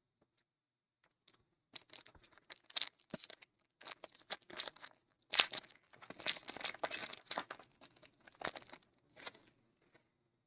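A trading-card pack wrapper being torn open and crinkled by hand, in irregular crackling bursts with sharp rips, starting about two seconds in and stopping shortly before the end.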